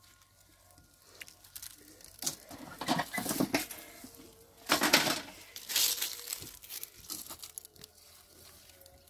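Dry okra stalks and pods rustling and crackling in a few bursts as the dried pods are picked, loudest about three and five seconds in.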